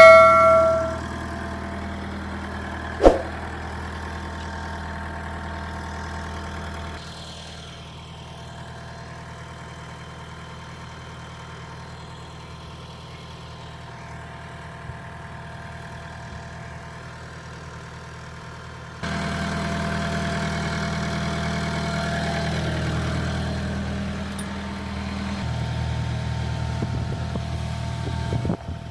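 Heavy diesel engine running steadily. There is a ringing metallic clang at the very start and a sharp clank about three seconds in. The engine sound drops quieter about seven seconds in and jumps louder about nineteen seconds in.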